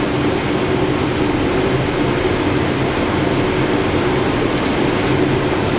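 Steady cockpit noise of a Boeing 777 on short final: an even rush of air with a low, constant hum beneath it.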